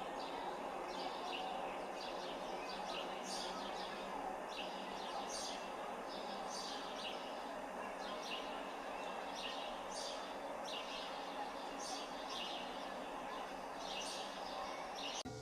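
Small birds chirping: short high calls repeating every second or so over a steady background hiss.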